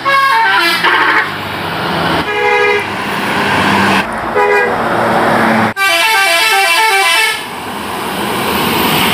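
Bus telolet horns: multi-tone musical air horns playing short stepping melodies, several horn blasts in a row with abrupt changes about every two seconds, over a steady background rush.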